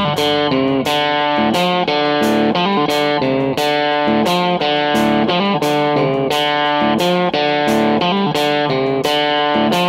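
Background music: a guitar picking a quick, steady run of notes, about three a second.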